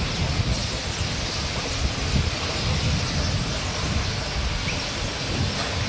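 Aerial cable car cabin pulling into its station: a steady, uneven rumble of the cable and running gear, mixed with wind gusting on the microphone.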